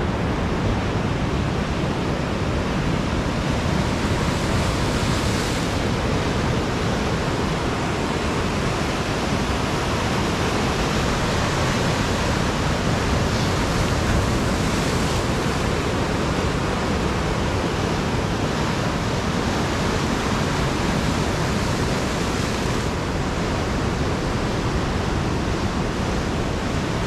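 Ocean surf breaking and washing over the rocks of a boulder jetty: a steady, unbroken rush of white water, mixed with wind on the microphone.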